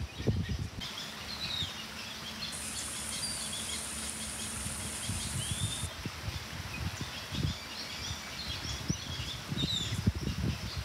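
Small birds chirping now and then in tropical trees, short high calls scattered through, over a steady outdoor background with low rumbling bumps. A high steady hiss starts about two and a half seconds in and cuts off about halfway through.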